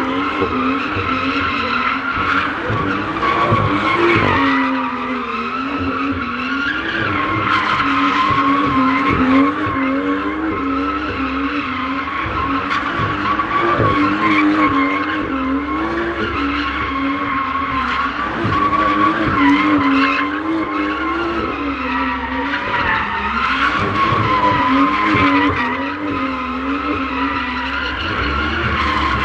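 BMW M2 spinning donuts: its rear tyres skid and squeal on the tarmac without a break while the turbocharged straight-six holds high revs. The engine pitch rises and falls every second or two as the throttle is worked.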